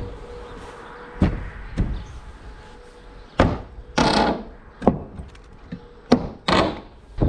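Old wooden barn boards being pulled off the barn: irregular sharp wooden knocks and bangs, about seven of them, with a couple of longer splintering cracks between them.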